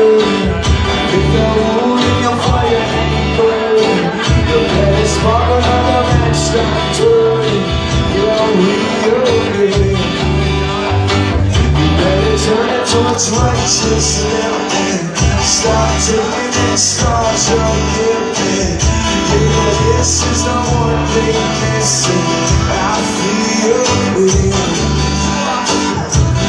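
A man singing live to his own strummed acoustic guitar, played through a club's PA system.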